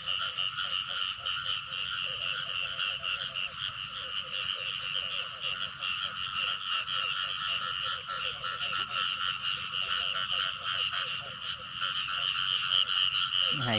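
A dense chorus of many frogs calling in a flooded rice field, a steady overlapping pulsing trill with no break.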